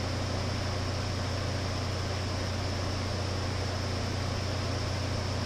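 Steady low hum under a constant even hiss, with no distinct sound events.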